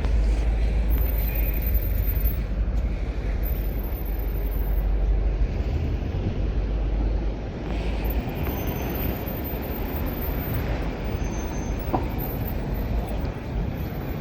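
Outdoor city street noise: a steady wash of sound with a heavy low rumble that eases about halfway through.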